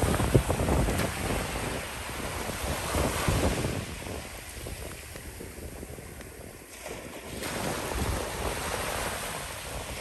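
Small waves washing onto a sandy beach, swelling and fading, with wind gusting on the microphone in low rumbles.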